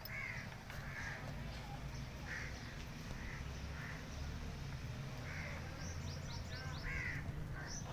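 Birds calling: short harsh calls repeating every second or two, with a run of quick high chirps near the end, over a steady low rumble.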